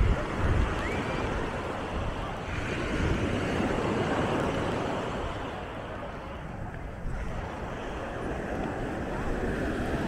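Small waves breaking and washing up a sandy shore, a steady surging wash that swells about three to five seconds in, with wind rumbling on the microphone near the start.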